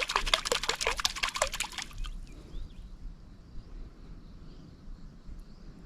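Water splashing and sloshing for about two seconds, a quick run of many small splashes.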